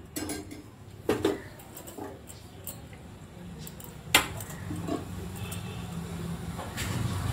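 A few scattered clinks and knocks of kitchen utensils against metal cookware, the loudest about four seconds in, over a low steady hum.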